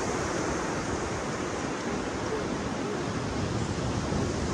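Steady wash of ocean surf and wind on a beach, with wind rumbling on the microphone.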